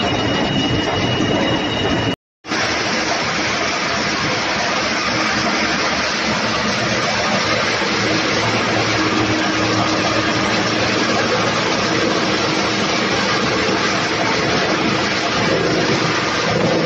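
Tire recycling line machinery running: a loud, steady, dense mechanical noise from the rubber grinding equipment. It cuts out for a moment about two seconds in, then carries on unchanged.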